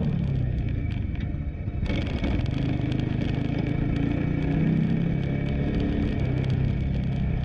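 Honda CB150X single-cylinder engine running steadily while the motorcycle is ridden, with wind and road noise on the camera microphone; the engine note rises a little around the middle.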